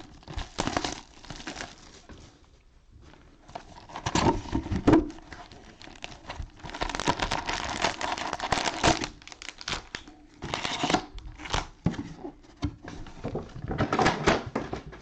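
Cellophane wrappers of trading card cello packs crinkling and tearing as they are handled and opened, in irregular rustling stretches with a few sharp clicks.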